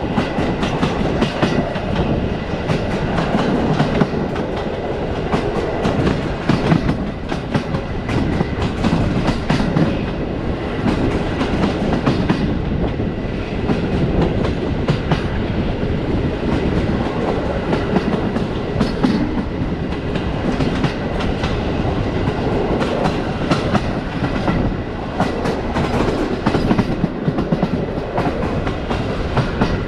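Passenger train coach running along the line, its wheels clacking and knocking on the rails over a continuous rumble.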